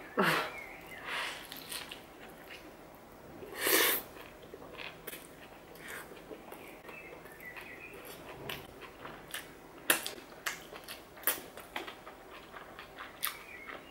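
Close-up mouth sounds of a large bite into a doner wrap and chewing it: a couple of louder bursts in the first few seconds, then many short wet clicks and smacks of chewing.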